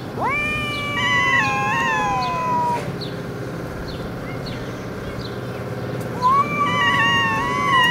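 Two cats in a standoff, yowling: one long, wavering howl of over two seconds, then after a pause another drawn-out howl starting about six seconds in. This is the threatening caterwaul of a territorial face-off before a fight.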